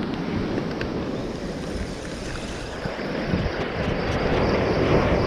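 Sea surf breaking and washing among the granite boulders of a rock breakwater, mixed with wind rumbling on the microphone, the surge swelling louder in the second half.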